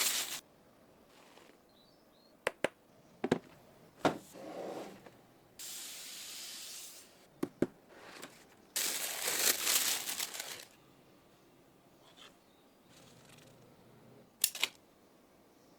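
Shoe box and its wrapping being handled while unboxing: scattered sharp clicks and knocks, a steady hiss about six seconds in, and a louder rustling spell around nine to ten seconds in.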